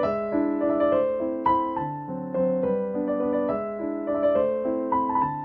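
Background music: gentle piano or electric piano melody with sustained chords.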